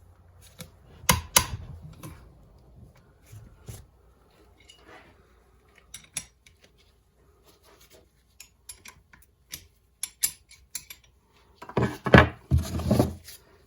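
Metal hand tools clicking, clinking and scraping on the engine as the cylinder-head nuts are worked loose: scattered sharp knocks, with a louder clatter of several knocks near the end.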